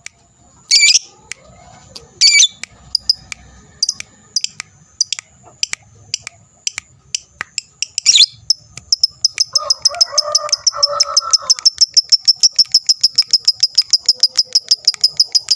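A lovebird giving a few sharp, separate chirps, then from about nine seconds in breaking into its long, fast, even chattering trill, the 'ngekek panjang' of a male fighter lovebird.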